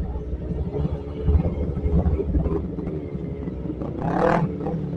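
Kawasaki sport motorcycle engine running at low speed, a steady low rumble. A short voice cuts in about four seconds in.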